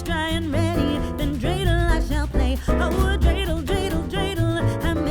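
Background music: a song with a sung vocal melody over a steady bass line.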